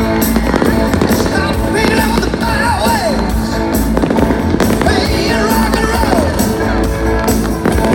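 Loud music accompanying a fireworks display, with fireworks bursting repeatedly through it.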